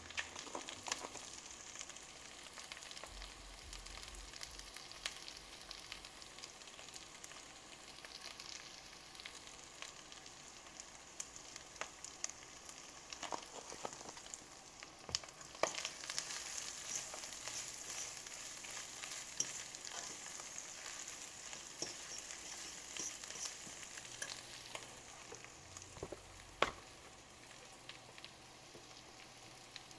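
Lion's mane mushroom crumble with onions and peppers sizzling steadily in a stainless steel skillet, full of fine crackles, with a few sharp clicks.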